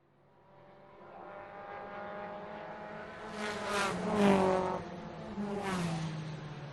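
Race cars at full throttle, fading in, then several cars passing one after another, each engine note dropping in pitch as it goes by; the loudest pass comes a little past the middle.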